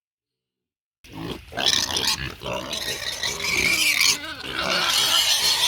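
Pigs squealing and grunting loudly for their feed, the noise of hungry hogs at feeding time. It starts suddenly about a second in.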